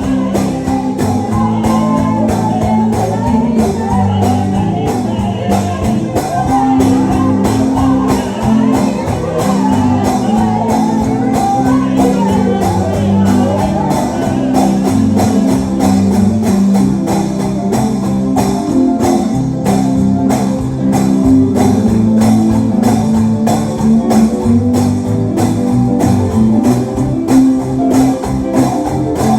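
Live gospel music from a small band: guitar and bass playing chords over a steady beat, with a tambourine keeping time.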